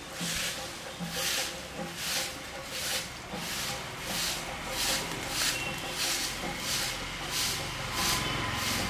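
Rhythmic pulsing hiss, about two pulses a second, with a faint steady high tone beneath it.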